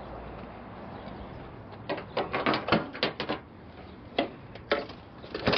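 A quick run of clicks and knocks about two seconds in, then a few single knocks near the end: the latch and door of a semi tractor's side storage compartment being opened, and things being handled inside.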